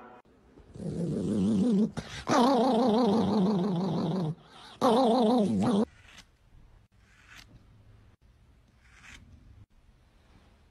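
A dog gives three long, wavering howl-like calls, its pitch wobbling quickly up and down; the first is shorter and quieter, the last two loud. After them only faint scattered sounds.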